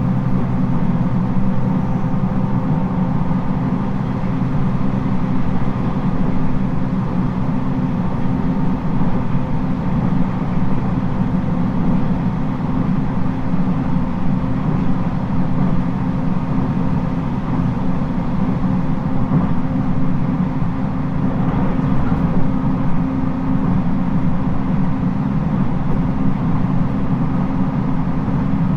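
Running sound of a JR East 719 series AC electric multiple unit heard from inside the car at speed: a steady rumble of wheels on rail with a steady jet-like whine, this car's known unusual noise.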